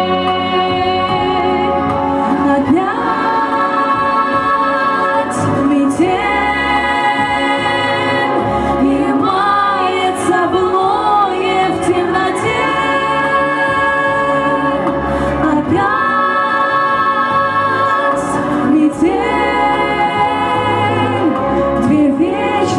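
Female voices singing a slow melody in long held notes over a backing track with a steady bass line.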